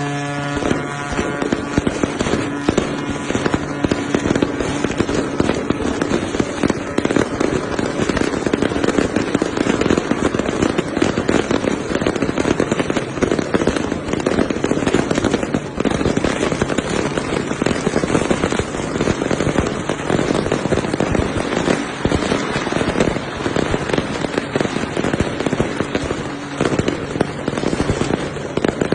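Strings of firecrackers going off in a dense, continuous crackle for a ship launch. A ship's horn is sounding at the start and cuts out about a second in.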